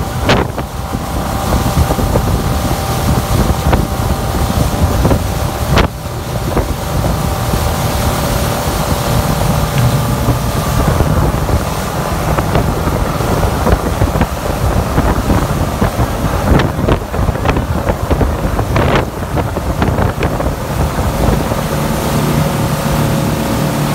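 Motorboat engine running steadily at towing speed, under heavy wind noise on the microphone and the rush of the churning wake, with a few brief clicks.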